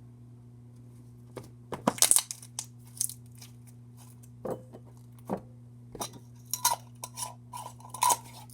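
Soft butter slime with a few foam beads being squished and poked by hand, giving irregular crackles and pops, loudest about two seconds in and coming thick again over the last few seconds.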